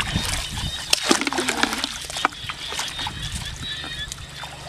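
Water splashing and sloshing with scattered sharp clicks, and a short pitched sound about a second in.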